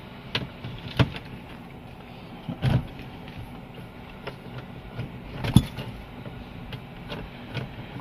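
Scattered metal clicks and knocks of a long socket wrench on the steering wheel's 19 mm centre nut as it is worked loose, with the sharpest knock about five and a half seconds in.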